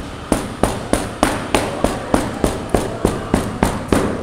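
Rehydrated llama charque (salt-dried meat) pounded by hand on a plastic cutting board to shred it, a steady run of sharp knocks about three a second.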